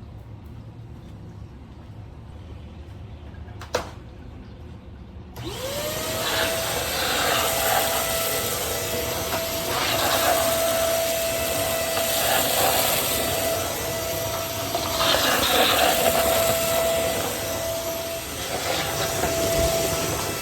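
Electrolux STK15 PowerSpeed Ultra corded stick vacuum switched on about five seconds in, after a single sharp click. Its motor whine rises and levels off into a steady high tone, and the suction noise swells and eases as it vacuums.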